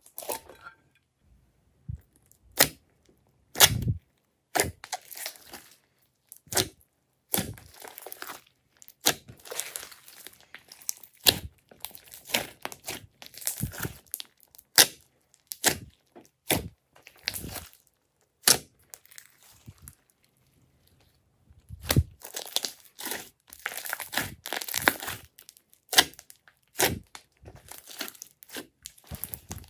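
Thick glossy slime being squished, pressed and kneaded by hand, giving irregular sharp wet pops and crackles, with a short pause about two-thirds of the way through.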